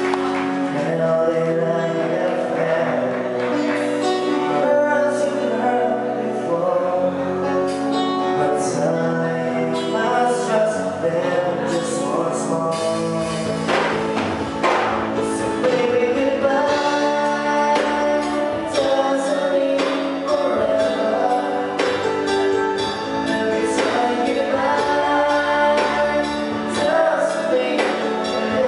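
Live band playing a song: a woman singing lead into a microphone over a drum kit, electric guitars and keyboard.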